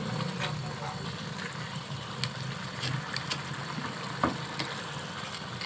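Chicken curry gravy with yogurt bubbling and sizzling in a pan while a wooden spoon stirs it, with scattered small pops and scrapes and one sharper knock of the spoon about four seconds in, over a steady low hum.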